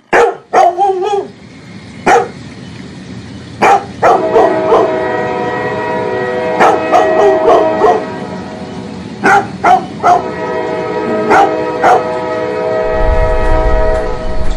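A dog barking in short, sharp barks, over and over, while a train horn sounds long held blasts of several tones at once, from about four seconds in and again from about nine seconds in. A low rumble comes in near the end.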